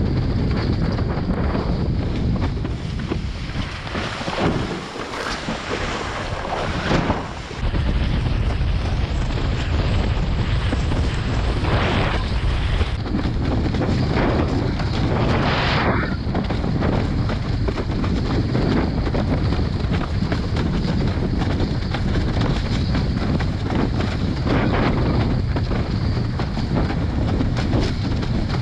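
Strong wind buffeting the microphone over rushing water as a windsurf board planes at speed, with a few short splashes of spray. The low wind rumble drops away for a few seconds about a quarter of the way in, then comes back.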